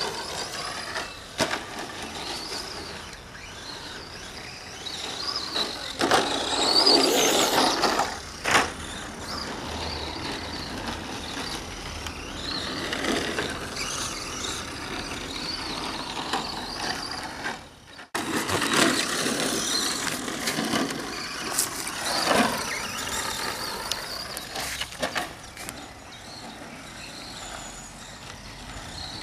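Radio-controlled Team Associated SC10 short-course truck driving laps, its motor whine rising and falling as the throttle comes on and off, with tyre noise over the track. A louder, rougher stretch of noise comes about six to eight seconds in, and the sound drops out briefly around eighteen seconds in.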